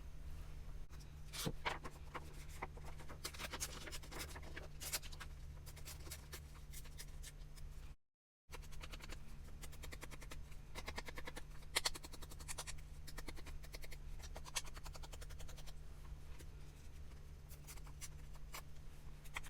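Paper being handled and worked on a craft table: a run of short scratchy rubbing and rustling strokes over a steady low hum, cut off by a brief dead-silent gap about eight seconds in.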